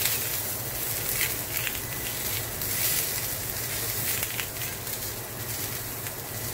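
Squash slices sizzling in oil in a hot cast iron skillet, a steady sizzle with occasional crackles and light tong contact as the slices are turned. A steady low fan hum runs beneath.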